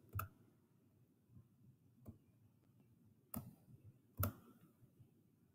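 A few sharp computer mouse clicks, about four over four seconds, spaced one to two seconds apart, against near silence.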